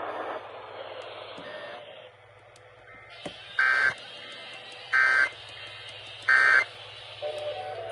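Emergency Alert System end-of-message data tones: three short, loud bursts of shrill digital screech about a second apart, signalling the end of the alert broadcast. Music starts just before the end.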